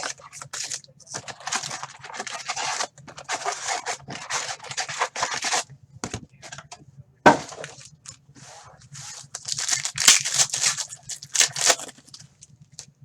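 Plastic wrapping on a sealed box of trading cards being torn and crinkled in irregular bursts as the box is opened, with one sharp snap about seven seconds in.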